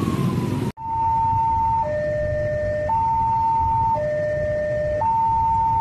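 An ambulance siren sliding down in pitch is cut off abruptly under a second in. Then a railway level-crossing warning alarm sounds, alternating a high and a low tone, each held about a second: the crossing is closed for an approaching train.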